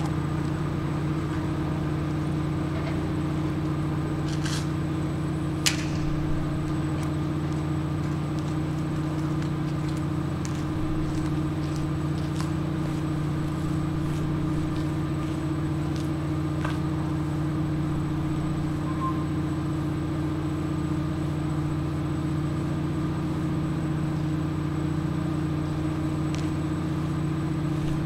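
Engine running steadily, a low even drone, with a couple of sharp clicks about four and a half and six seconds in.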